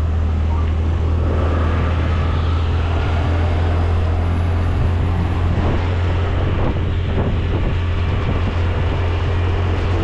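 Honda Dio scooter on the move: steady low wind rumble on the microphone over the scooter's running engine.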